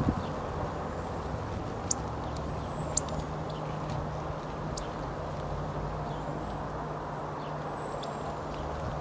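Steady outdoor background rumble with a low hum, of the kind distant traffic makes. Two faint, thin high-pitched tones rise and fall, each lasting about two seconds, one early and one late. A few sharp ticks sound in the first half.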